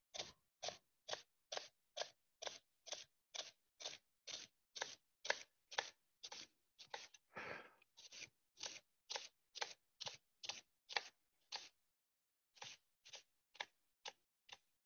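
Knife chopping peeled rhubarb finely on a cutting board: faint, even strokes about two a second, with a brief pause about three quarters of the way through.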